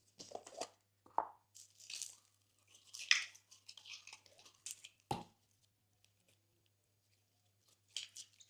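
Glossy slime being worked and pressed, giving off irregular crackles and pops in quick clusters, then falling quiet for a couple of seconds before another short cluster near the end.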